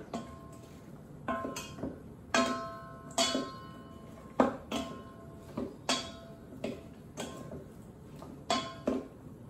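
Wooden salad servers knocking against a stainless steel mixing bowl while tossing a salad: about a dozen irregular knocks, the bowl ringing briefly after each.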